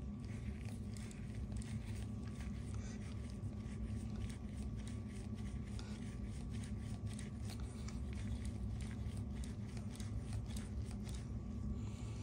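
Grease gun being coupled to a wheel-bearing packer and worked by hand: faint, irregular clicks and scrapes of metal parts over a steady low hum.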